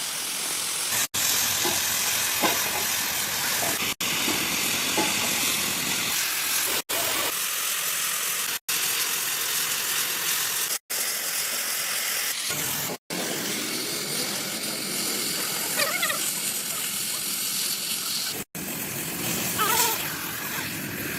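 Steady hissing workshop noise from hot metalworking, broken by short sudden gaps every two to three seconds where clips are spliced together.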